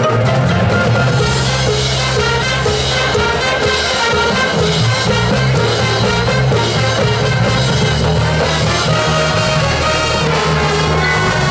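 Marching band playing a loud, brass-led passage of its field show, with sustained chords.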